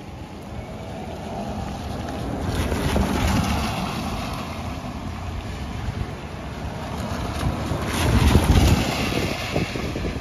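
Vehicles passing on a wet street: a rushing tyre hiss that swells and fades twice, about three seconds in and again, louder, around eight seconds.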